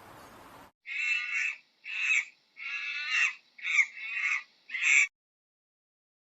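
An animal giving six harsh, loud calls in quick succession, each about half a second long, after which the sound cuts off abruptly.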